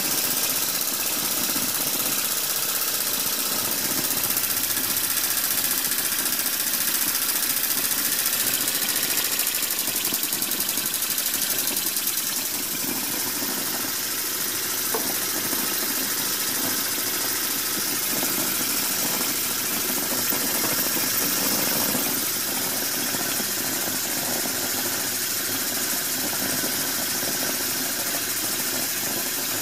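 Homemade steam engine running flat out on live steam from a homemade boiler: the engine's fast, even running over a steady hiss of steam.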